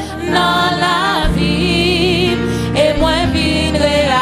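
Gospel worship singing with instrumental accompaniment: a woman's lead voice holds long notes with wide vibrato over backing singers and a steady bass and keyboard bed.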